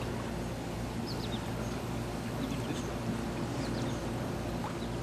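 Steady low hum of outdoor background noise, with faint, short bird chirps scattered through it.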